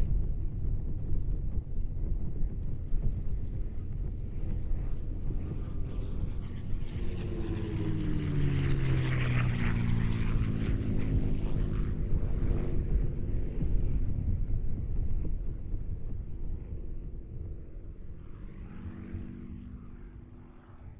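Piston-engined fighter, a P-51 Mustang with a Merlin V-12, flying past: a low engine drone that swells to a peak about nine seconds in, its pitch falling as it goes by, then fades away.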